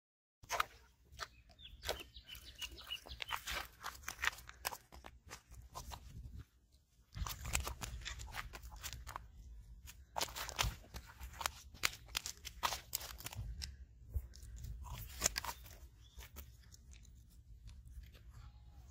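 A freshly landed fish flopping on a dry, stony dirt bank: irregular crunching and slapping taps, with a low rumble joining about seven seconds in.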